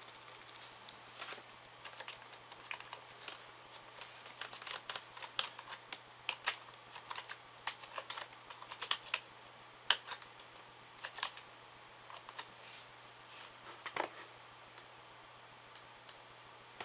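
Computer keyboard being typed on: short, irregular runs of key clicks, dying away near the end.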